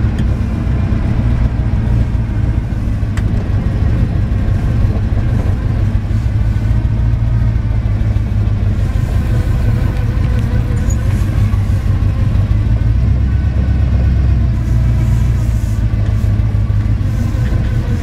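1979 GMC Stepside pickup's engine running while driving slowly, heard from inside the cab: a steady low rumble whose engine note rises and falls a little.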